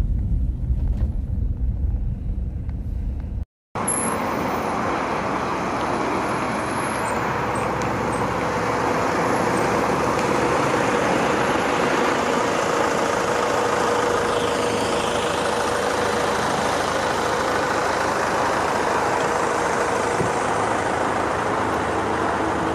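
Van engine running, heard from inside the cab as a deep rumble. After a brief dropout about three and a half seconds in, a steady hiss of vehicle and road noise.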